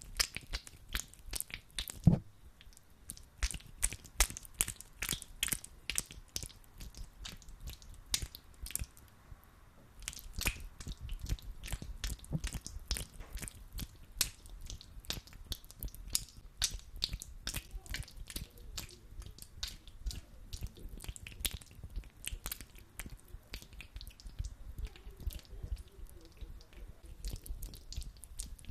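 Hands rubbing and squeezing sticky aloe vera gel, a dense run of wet clicks and squelches that gets fuller and louder about ten seconds in.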